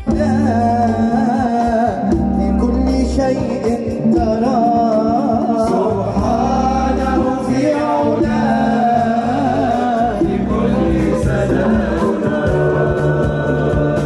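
A song: a solo voice sings a winding, ornamented melody over steady low accompaniment.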